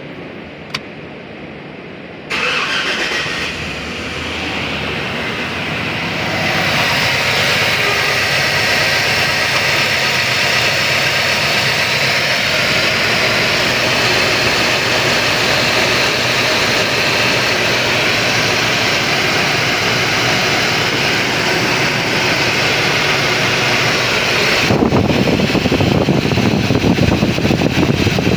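A GMC V8 engine with a misfire starting about two seconds in, then running steadily. It grows louder and rougher near the end.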